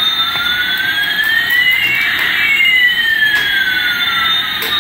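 Toy Airbus A380's built-in electronic jet-engine sound effect: a hiss with two tones gliding past each other, one rising and one falling, crossing about halfway through.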